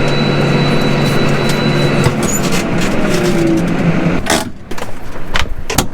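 Farm tractor engine running steadily, with a few sharp knocks or rattles near the end.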